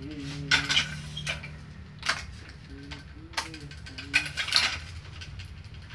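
Badminton racket being strung on a stringing machine: sharp clacks and ratchet-like clicks from the clamps and tension head as each string is pulled and tensioned one at a time, with short squeaks of the string drawn through the frame.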